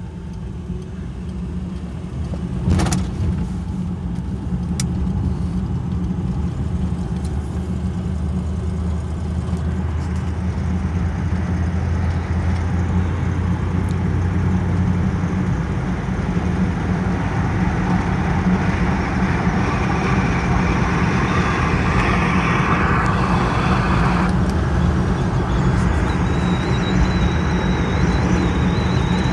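A 1956 Chevrolet four-door heard from inside the cabin as it pulls away from a stop and gathers speed: engine hum and road noise growing louder over the first several seconds, then running steadily at speed. A sharp click about three seconds in, and a faint high whine near the end.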